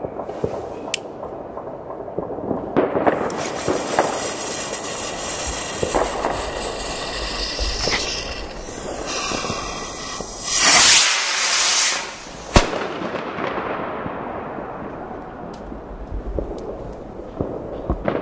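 A skyrocket launching with a loud rushing whoosh that lasts about a second and a half, followed at once by a single sharp bang as it bursts. Before it comes a falling whistle, and scattered fireworks bang and crackle in the distance throughout.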